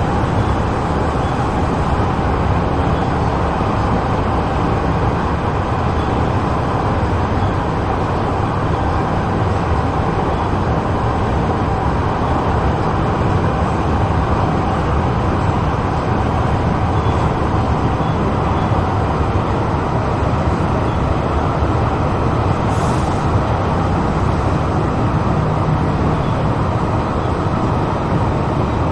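Inside the passenger saloon of a Metro Cammell 'MLR' electric multiple unit on the East Rail Line while the train runs: a steady rumble of wheels and running gear with a faint steady tone over it. A brief hiss comes about three-quarters of the way through.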